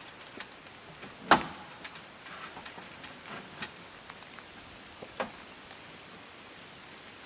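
Light rain hissing steadily, with scattered soft ticks of drops. A single sharp knock about a second in, the loudest sound, and a smaller knock about five seconds in.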